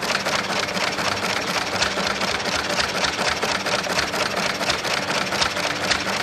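Old stationary hit-and-miss engine running, its heavy flywheels turning, with a rapid, even mechanical clatter.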